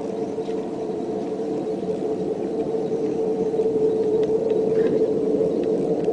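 A steady, low droning hum on one held pitch with overtones, growing slowly louder. It is one of the unexplained 'strange sounds in the sky' recordings.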